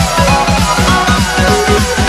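Background electronic music with a fast, steady beat and falling synth lines.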